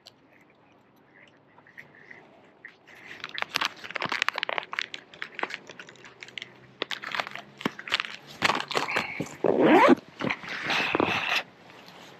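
Crinkling and rustling of a plastic soft-plastic lure packet being handled and opened as a worm is drawn out, in irregular bursts of crackles that stop abruptly near the end.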